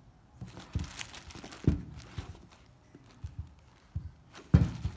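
Handling noise of a sneaker and small plastic zip bags of spare laces: light crinkling and rustling of the bags, with two knocks, the second near the end the loudest.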